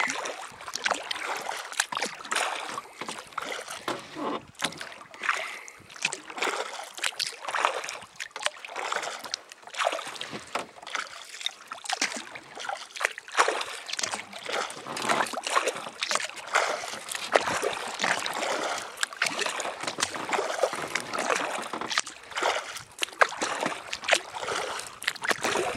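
Water splashing and lapping against the hull of an inflatable kayak being paddled down a river, in irregular small splashes.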